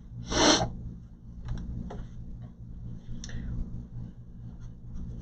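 Hands handling the plastic back housing of an HP all-in-one desktop: a brief scrape about half a second in, then scattered light clicks and taps of plastic parts, over a steady low hum.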